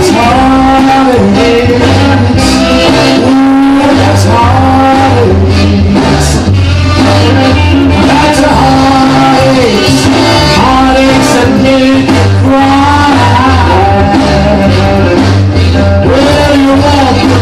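A rock and roll record playing: a band with a wavering lead melody line over a steady bass.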